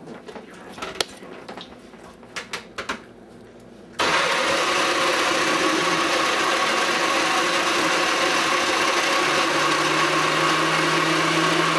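A few clicks and knocks, then about four seconds in a blender's motor switches on abruptly and runs steadily, mixing the ingredients. Near the end a lower hum joins in.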